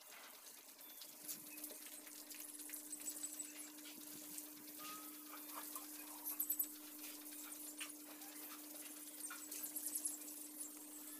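Faint scraping and tapping of a mason's trowel working wet cement mortar, with small birds chirping now and then and a steady low hum underneath.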